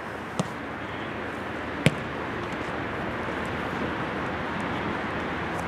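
Outdoor ambience with steady wind noise on the microphone, broken by two sharp thuds of a football being kicked, about half a second and two seconds in.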